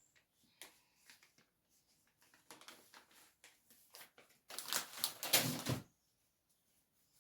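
Plastic vacuum-cleaner parts being handled and cleaned: light clicks and scrapes, then a louder stretch of rubbing and scraping about four and a half seconds in, lasting just over a second.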